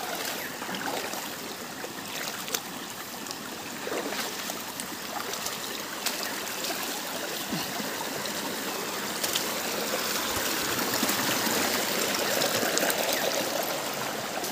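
Stream water running and trickling steadily, growing a little louder in the second half.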